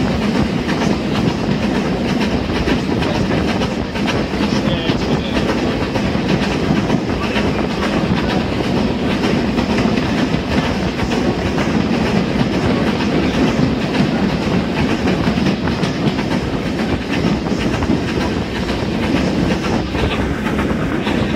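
Vintage steam-hauled railway carriage running along the track, heard from inside at the window: a steady rumble of wheels on the rails with clickety-clack.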